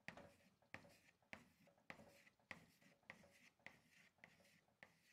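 Faint chalk scratching on a chalkboard as small circles are drawn one after another, a short stroke roughly every half second.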